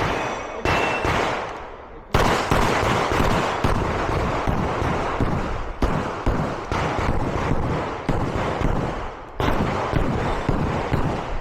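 Glock 34 9 mm pistol fired in fast strings of shots while shooting a match stage. There are a few shots, a lull of about a second, then a near-continuous run of rapid shots, a brief break near nine seconds, and more shots to the end.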